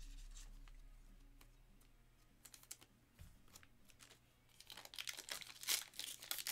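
Light clicks of trading cards being flipped and set down, then from about four and a half seconds in the crinkling of a foil card pack's wrapper as it is picked up and torn open.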